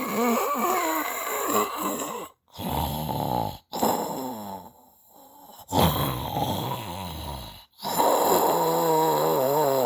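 Snoring: a wavering, pitched rasp, broken three times by sudden short gaps, with a quieter stretch in the middle.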